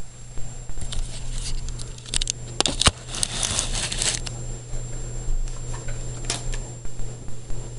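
Irregular rustling and crackling handling noise with a few sharp clicks, thickest a little after three seconds in, over a steady low hum and a faint high whine.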